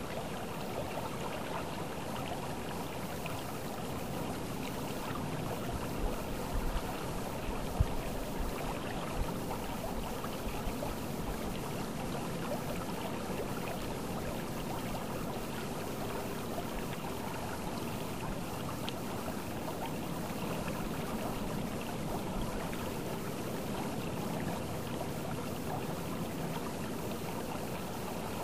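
River water flowing and trickling, a steady even rush, with a few brief low thumps about six to nine seconds in.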